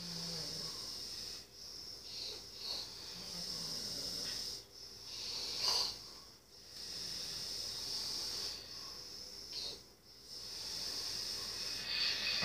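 Heavy breathing of a person asleep: hissing breaths, one every two to four seconds.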